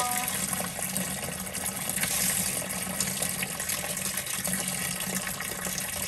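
Cold tap water running steadily through a hose into a portable washing machine's tub, filling it.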